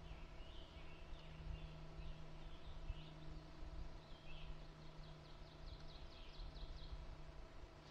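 Faint songbirds calling in the woods: scattered high chirps and warbles, then a quick high trill of about a dozen notes near the end.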